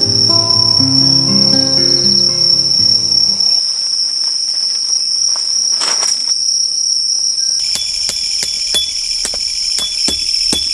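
Crickets chirping in a steady high trill. Soft background music plays under it and stops about a third of the way in. Near the end comes a run of short sharp clicks and taps.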